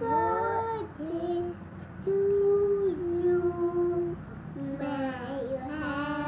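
Young children singing, with long drawn-out held notes in the middle.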